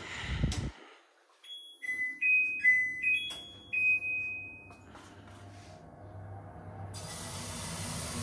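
A short tune of electronic beeps stepping between a few high pitches, after a dull thump at the start; near the end a steady hiss sets in.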